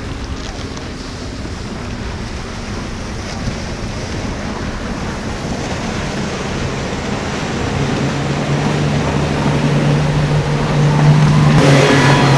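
Center-console motorboat running past on choppy sea, its engine hum growing louder as it approaches, over wind buffeting the microphone and waves. Near the end a louder rush of engine and spray comes in.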